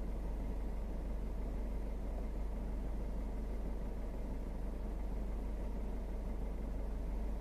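New Subaru BRZ's 2.4-litre flat-four boxer engine idling steadily, with a deep, even hum and no rattle or other odd noise on top.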